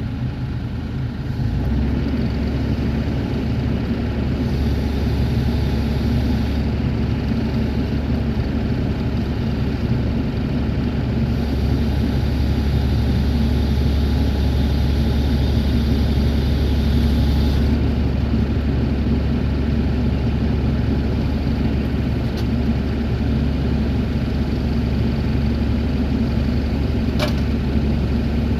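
Bobcat E42 mini excavator's diesel engine running steadily under hydraulic load, its low drone stepping up a little about a second and a half in. A higher hiss comes and goes twice over it, and there is one sharp click near the end.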